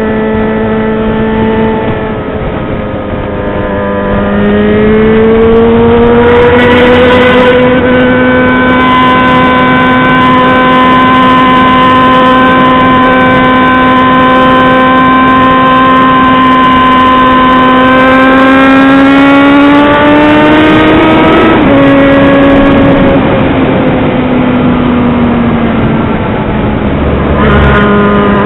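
Yamaha XJ6's 600 cc inline-four engine running loud under load while riding. The pitch dips and climbs early on, holds high and steady for about fifteen seconds, then climbs a little further before dropping sharply and winding down slowly as the throttle eases off.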